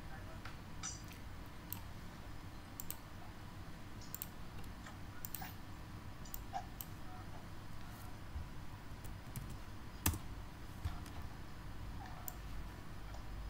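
Computer mouse clicking irregularly, with a few keyboard keystrokes, over a low steady hum; one click about ten seconds in is louder than the rest.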